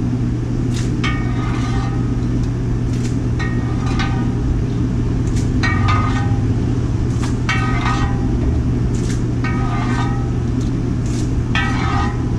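Propane burner running under a cast iron wok of boiling water, a steady low rumble. Short higher-pitched sounds come and go over it every second or so.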